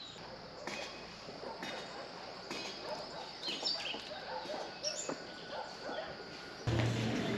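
Outdoor ambience of birds chirping and dogs barking. About a second before the end, louder music with a steady deep bass starts abruptly.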